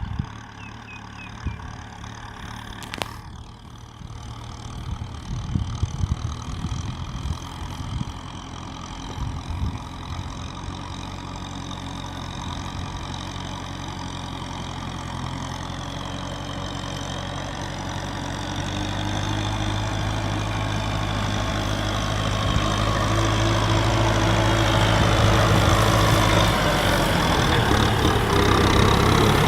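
Kubota M6040 SU tractor's diesel engine running under load while ploughing, growing steadily louder as it comes closer. Irregular knocks and clatter sound over the engine in the first several seconds.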